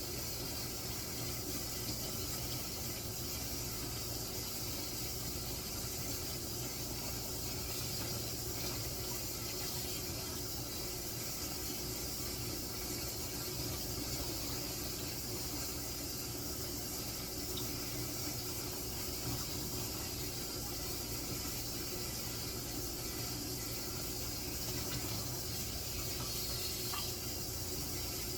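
Kitchen tap running steadily into a sink while raw oxtails are rinsed and scrubbed with lemon.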